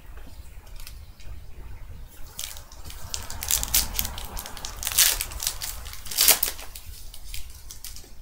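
Trading cards and pack wrappers being handled: a run of crinkling and sharp clicks of card stock, loudest about five and six seconds in.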